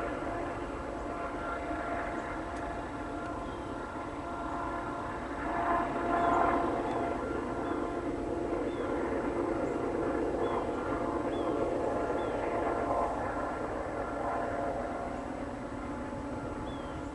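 Union Pacific C44ACM rear distributed-power locomotive (a rebuilt GE AC44CW) pushing a loaded grain train at full throttle in notch 8. Its diesel engine and turbocharger give a steady, screaming drone with several held tones, loudest about six seconds in.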